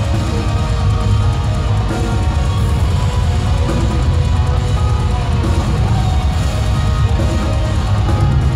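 Metal band playing live and loud, with distorted guitars and pounding drums, heard from the crowd in a large concert hall.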